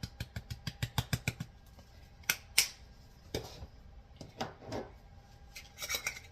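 A plastic spice shaker shaken over the dish, rattling in quick even clicks about six or seven a second for the first second and a half. Then a few separate knocks and clinks as the spice jars are handled.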